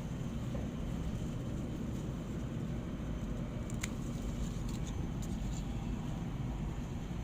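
A few crisp snips of scissors cutting through crunchy sweet basil stems, the clearest about four seconds in, then several fainter ones close together. A steady low background rumble runs underneath.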